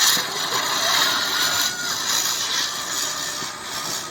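A lit firework burning with a steady loud hiss, with a faint thin whistle about a second in.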